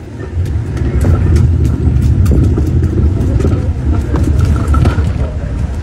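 Loud, steady low rumble with scattered faint clicks and crackles.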